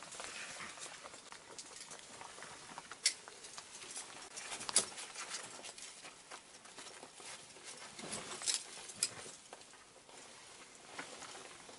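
Scattered scraping and sharp clicks of a mixed climber's crampons and metal gear against rock, with a handful of louder clicks among steady scratching.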